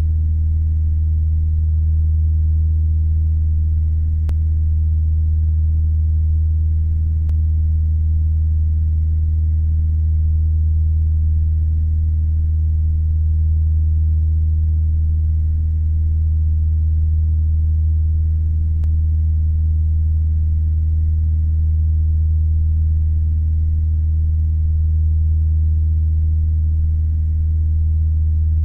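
CAP-10 aerobatic trainer's four-cylinder piston engine and propeller droning steadily in flight, heard from inside the cockpit as a deep, even hum with no change in power.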